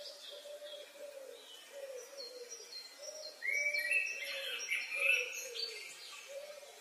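Birds chirping and calling, with a short lower call repeated about every half second beneath. The chirps grow louder and busier about three and a half seconds in.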